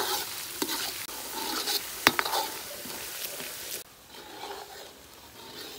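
Fermented black bean sauce sizzling in an iron wok on low heat as its water cooks off, stirred with a steel ladle that clinks sharply on the wok a few times. The sizzle becomes quieter after about four seconds.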